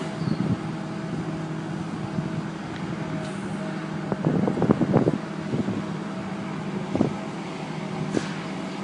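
Boom lift's engine running at a steady speed, with a cluster of knocks and clunks about halfway through and two single knocks later on.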